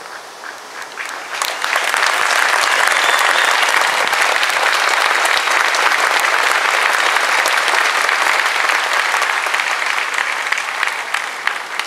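Crowd applauding: dense clapping that builds about a second and a half in, holds steady, and thins out near the end.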